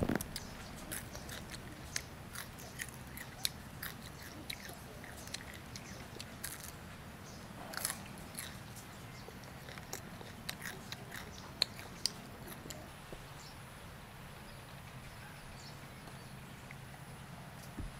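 Close-up mouth sounds of someone chewing crisp deep-fried tarantula: irregular crunches and crackles, thinning out over the last few seconds.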